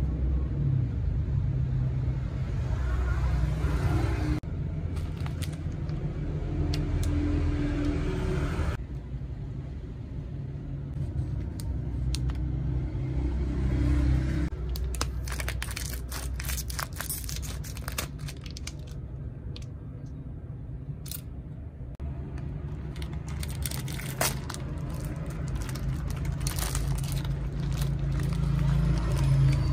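A plastic snack wrapper crinkling and crackling as it is handled and torn open, in dense sharp crackles through the second half, over a steady low background rumble.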